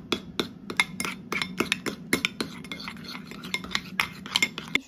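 A metal spoon stirring sauce in a ceramic bowl, clinking against the bowl's sides about three times a second, over a steady low hum.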